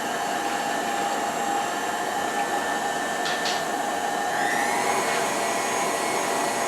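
Electric kitchen mixer running steadily while combining cookie dough, its motor whine rising in pitch about four and a half seconds in, with a couple of light knocks a little past three seconds.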